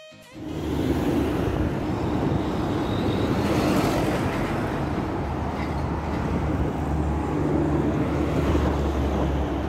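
Riding noise on a moving motorbike: the engine's steady low hum under wind rushing over the phone's microphone.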